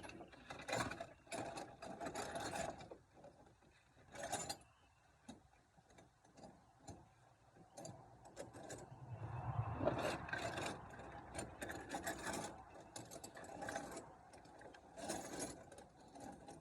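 Socket wrench ratcheting on the alternator bolts of a 1994 Chevy K1500, in several bursts of quick clicking mixed with metal clinks and rattles.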